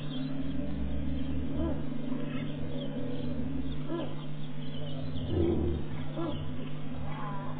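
Male lion roaring territorially: a run of short, deep grunts about a second apart. A steady low hum and a low rumble that comes and goes lie under it.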